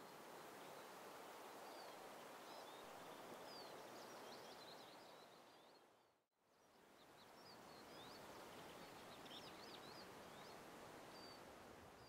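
Faint songbirds calling, many short high chirps and trills, over a steady outdoor hiss. The sound fades out about halfway through and fades back in.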